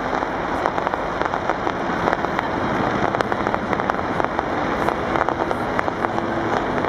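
Fireworks going off at close range: a dense, steady crackle of many small sharp pops.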